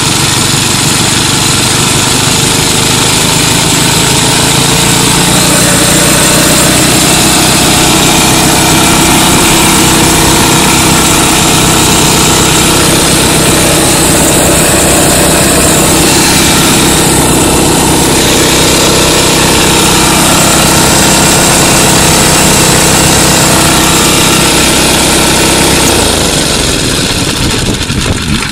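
A small single-cylinder 3 HP Briggs & Stratton gasoline engine runs at raised throttle, belt-driving a two-stage reciprocating Quincy 325 air compressor. The engine and compressor make a loud, steady running sound that changes a couple of seconds before the end and then cuts away as the run is shut down.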